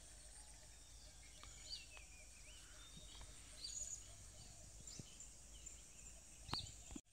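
Faint riverside ambience: scattered bird chirps and short whistles over a steady high insect hum, with a few soft clicks.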